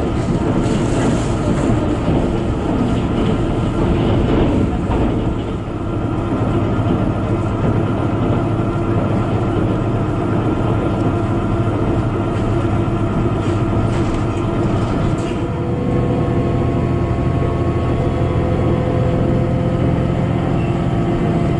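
Inside a KiHa 72 series diesel railcar under way: the steady running noise of the train, a low rumble of wheels on rail with the diesel engine's hum under it. About two-thirds of the way through, the engine note comes through more steadily and clearly.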